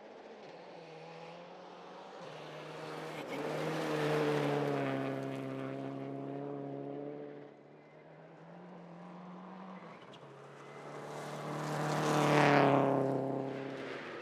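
Rally car engine at full throttle, its note swelling and easing as it approaches and changes gear, then passing close about twelve seconds in, the pitch falling as it goes by.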